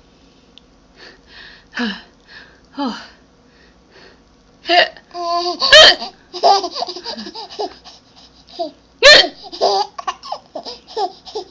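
A baby hiccupping, with short bursts of laughter and babble in between. Two sharp hiccups stand out as the loudest sounds, about six and nine seconds in.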